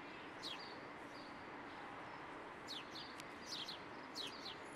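Small birds chirping: a single short falling chirp about half a second in, then a quick run of short falling chirps in the second half, over a faint steady outdoor hiss.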